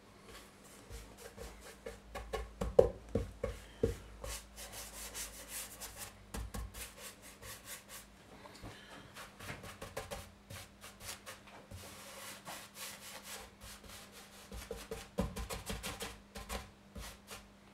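Oil being wiped and rubbed by hand into an oak cutting board: quick, irregular rubbing strokes over the wood surface, with a few light knocks.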